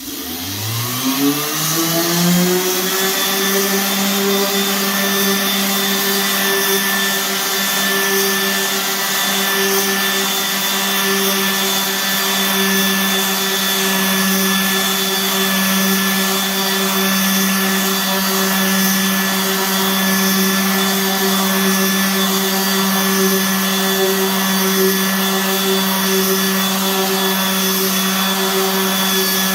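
Electric power sander starting up on raw wood, its whine climbing in pitch over the first two seconds, then running at steady speed while it is pushed over the surface with hand pressure.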